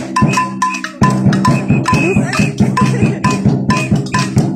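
Rhythmic percussion: drums and a cowbell struck about three times a second, with a steady low hum underneath.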